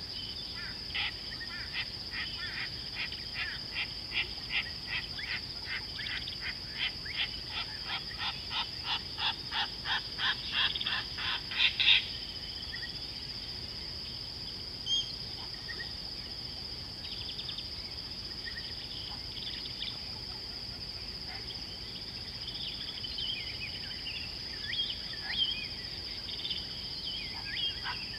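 Steady high-pitched insect drone, with a rhythmic series of harsh animal calls that speed up and grow louder for about twelve seconds and then stop abruptly; a few faint bird chirps follow near the end.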